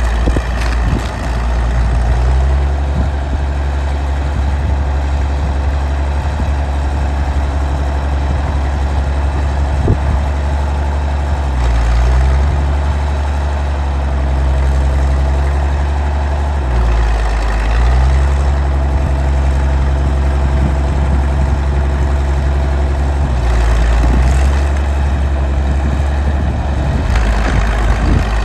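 Vintage Caterpillar D6-9U bulldozer's diesel engine running steadily under work. Its low note dips briefly and recovers three times as the engine takes load.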